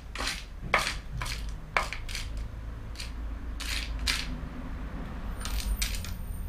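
Small loose metal screws clinking and rattling in a plastic parts crate as gloved hands rummage through them in search of a matching screw: a string of irregular sharp clinks.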